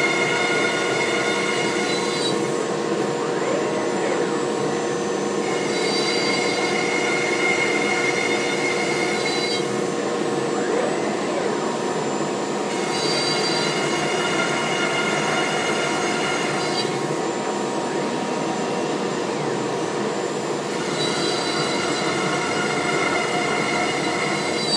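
Home-built CNC router running its first cutting job in MDF: a steady whirring with a higher whine that comes in for three to four seconds, drops out for about three, and comes back again several times as the machine works through a series of bolt holes.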